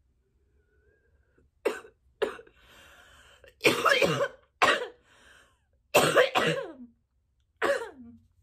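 A woman coughing hard in a run of about six coughs, starting about a second and a half in, after inhaling Delta 8 THC distillate vapour from an electric dab rig. A breathy exhale comes between the first coughs.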